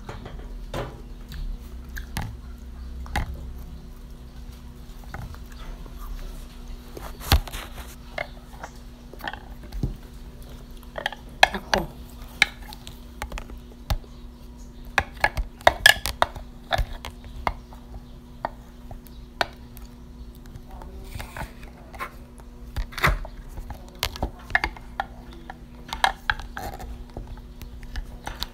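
Crisp bites and chewing of crunchy strawberry apples: irregular runs of short crunches and clicks, with some handling knocks mixed in, over a faint steady hum.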